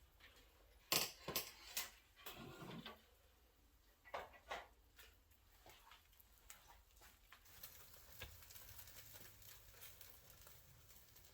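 A few light clinks, knocks and a short scrape of kitchen dishes and utensils being handled, clustered in the first five seconds, then only faint hiss.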